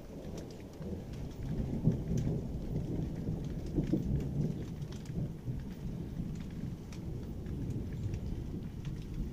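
Thunder rumbling low and rolling, swelling about two and four seconds in, over steady rain with scattered drops ticking close by.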